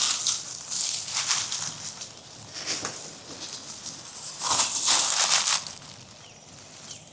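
Dry leaves and brush crunching and rustling under a person moving on foot, in irregular bursts that get quieter near the end.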